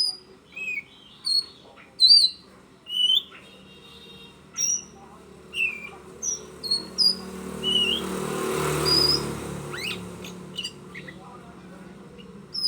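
Oriental magpie-robin singing: a string of short, clear whistled notes, each at a different pitch, about two a second. A rushing noise with a low hum swells and fades about two-thirds of the way through.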